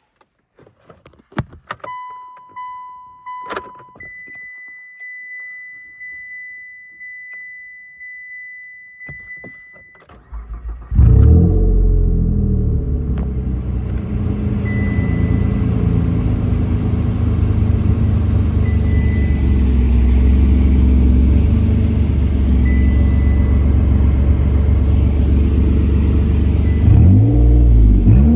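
A few clicks and a repeating electronic warning chime. About ten seconds in, the 2008 Mitsubishi Outlander XLS's 3.0-litre V6 cranks, catches on a cold start and settles into a steady idle with an exhaust leak. Near the end it is revved once, rising and falling in pitch.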